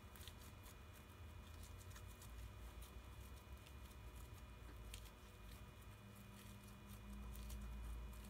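Faint, scattered sticky clicks and squelches of glue-and-tetraborate slime being kneaded and pulled between the fingers; the slime is nearly done but still sticking slightly to the hands.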